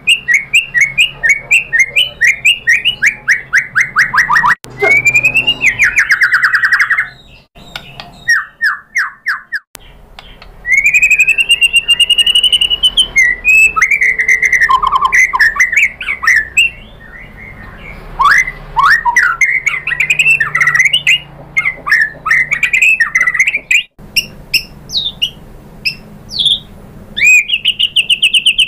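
White-rumped shama (murai batu) singing loudly: long runs of rapid, sharply repeated whistled notes and chattering rattles, varying phrase to phrase, with a couple of brief pauses.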